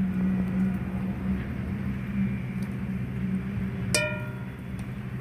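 A metal spoon strikes an iron wok once about four seconds in and rings briefly, as ghee is spooned into the pan. A steady low hum continues underneath.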